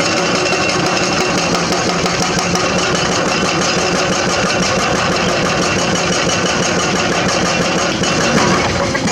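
Heavy excavator's diesel engine running steadily with a fast, even rattle, swelling briefly near the end.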